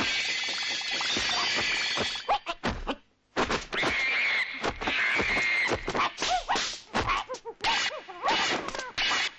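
Martial-arts film fight soundtrack: shrill, monkey-like screeching cries from the Monkey God-possessed fighter, broken by a brief silence about three seconds in. In the last few seconds comes a rapid run of dubbed punch and kick impact sound effects.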